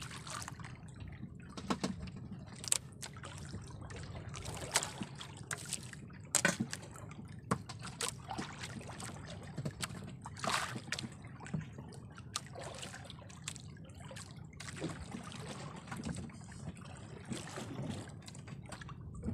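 Water lapping and trickling against a small fishing boat's hull, with scattered short clicks and splashes throughout.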